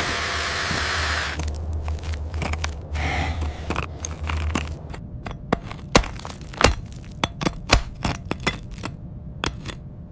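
A steady rushing noise that cuts off about a second and a half in, over a low hum that stops about five seconds in, then a run of sharp, irregular cracks and clicks.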